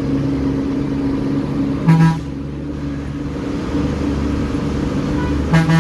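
Tamil Nadu state bus under way, its engine running with a steady drone heard through the open window, and two short horn toots, one about two seconds in and one near the end.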